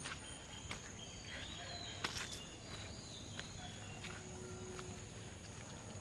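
Rural outdoor ambience: a steady high-pitched insect drone with short whistled bird calls over it. A few sharp clicks, the loudest about two seconds in.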